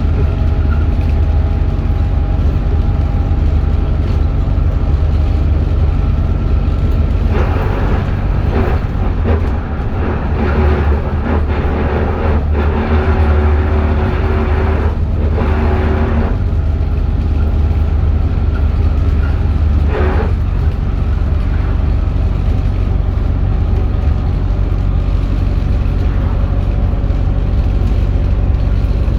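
Alexander Dennis Enviro400H hybrid double-decker bus running: a steady low drone with several faint whining tones above it. About seven seconds in comes a stretch of hissing noise that lasts some nine seconds with brief breaks, then a short hiss about twenty seconds in.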